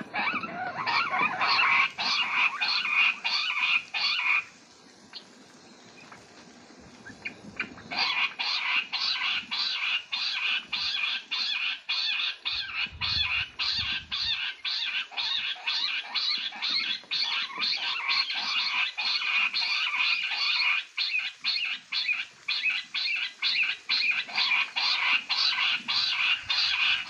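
Jungle bush quail calling: a fast, continuous run of high, repeated chirping notes. It stops for about three seconds around five seconds in, then starts again and keeps going.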